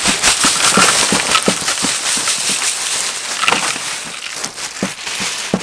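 Crushed ice pouring from a plastic bag onto peeled pineapples in a metal tray: a dense rattling crackle of ice pieces that slowly thins out.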